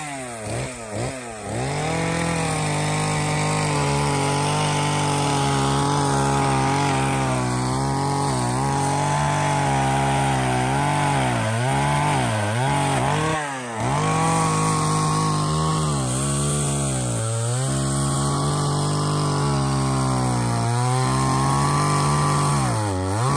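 Two-stroke chainsaw running at high revs while cutting, its pitch dropping briefly several times as the throttle eases off and climbing back up.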